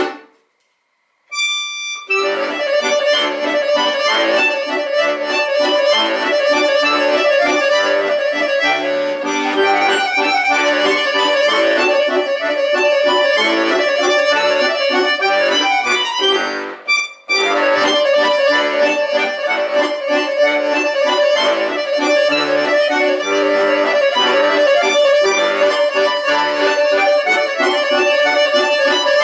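Accordion playing an instrumental piece, with a brief pause about a second in and another short break around the middle.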